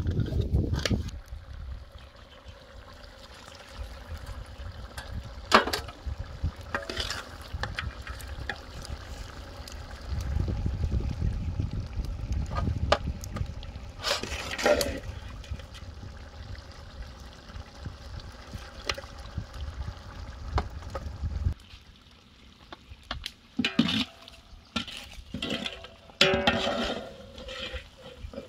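Wet, squelchy liquid sounds of raw mutton being mixed with curd and spices, with scattered knocks and clicks and a busier clatter near the end. A deep rumble of wind on the microphone comes and goes, strongest in the middle.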